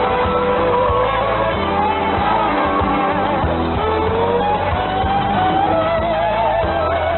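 Music received over shortwave AM radio, its sound cut off above about 4 kHz so it comes through thin and without treble.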